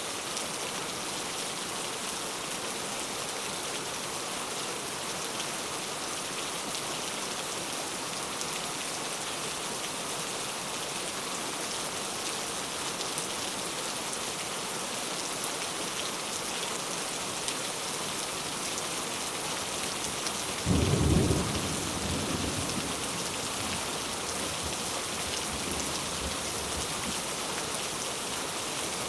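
Steady rain falling, an even hiss, with a clap of thunder about two-thirds of the way through that rumbles away over a couple of seconds.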